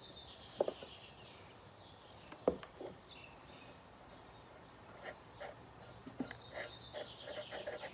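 Light metal clicks and taps of a chainsaw clutch drum being worked onto its greased needle-cage bearing on the crankshaft by hand. There is one sharper click about two and a half seconds in and a run of small taps near the end.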